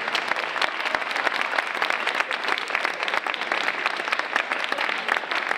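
Audience of schoolchildren applauding in a hall, many hands clapping quickly, easing off near the end.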